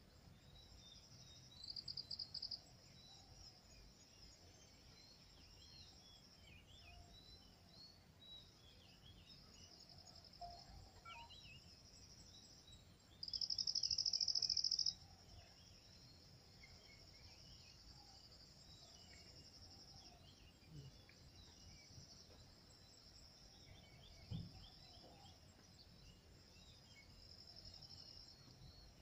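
Insects trilling steadily in high grass and scrub, with two louder rapid pulsed buzzes, a short one about two seconds in and a longer, loudest one about halfway through. Faint bird chirps are scattered through it, and there is one brief low thump near the end.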